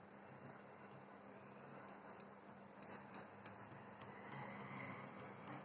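Very quiet stirring of semolina cake batter: a few light clicks of a spoon against the mixing bowl, four or so in the middle, then a faint soft scraping.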